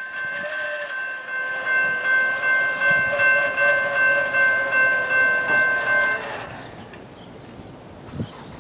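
Air horn of a Norfolk Southern EMD SD70ACE diesel locomotive sounding one long multi-note chord that swells and fades about twice a second, cutting off about six seconds in. A quieter train rumble with a few knocks follows.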